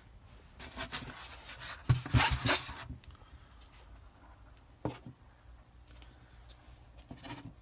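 Rustling and rubbing of fibre packing stuffing as a hand digs through it in a foam box, with a few light knocks of small plastic pots; the loudest rustling comes about two to three seconds in, followed by a single sharp click near five seconds.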